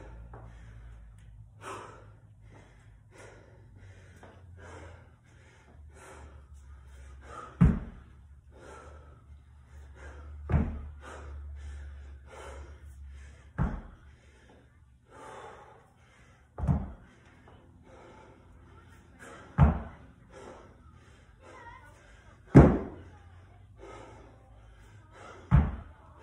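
A 50-pound dumbbell knocking down on a rubber floor mat about every three seconds, seven times, as it touches the floor between reps of dumbbell snatches, with hard, quick breathing between the knocks.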